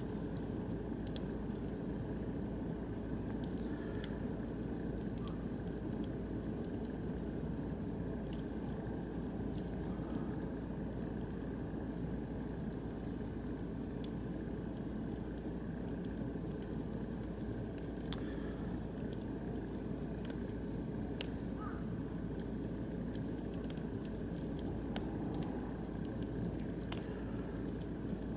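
Oak and beech logs burning in a barbecue grill: a steady low fire noise with frequent sharp crackles and pops from the wood, a few pops standing out louder.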